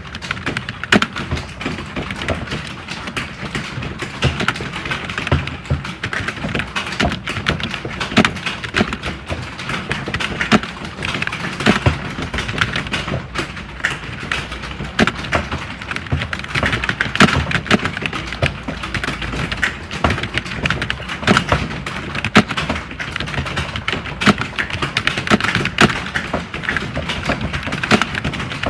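Computer keyboard typing: a dense, unbroken stream of fast key clicks with no pauses.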